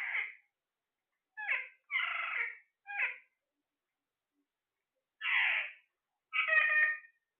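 A pet parrot calling: about six short, harsh calls, four close together, then a pause of about two seconds, then two more.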